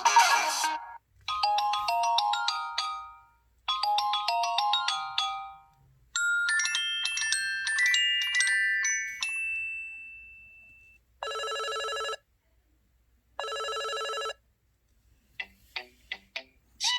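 Several LG X2 (K30) ringtones in succession. One tone ends about a second in. A short chime melody plays twice, then a higher bell-like melody fades out. Two identical electronic ring bursts follow, each about a second long, and a few sharp ticks come near the end.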